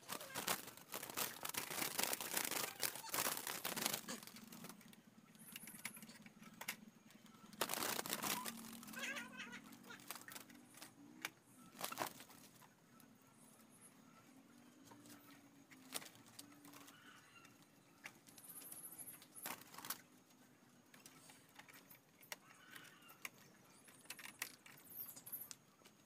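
Rattling, clicking and knocking of a wooden bird cage's small door and frame as it is handled, dense in the first few seconds and again near a third of the way in, then single sharp knocks. A faint low steady drone runs under the middle part.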